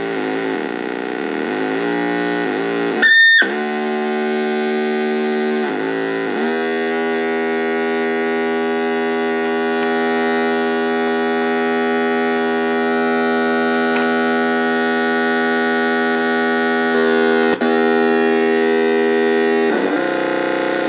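Homemade square-wave oscillator synthesizer buzzing through its own small built-in speaker: a harsh, steady electronic drone. A short loud chirp comes about three seconds in, the pitch shifts around six seconds and again near the end, and there is a single click late on.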